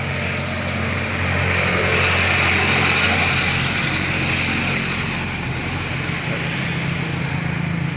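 Vehicle engine running steadily, with a rushing noise that swells about a second in and eases after about five seconds.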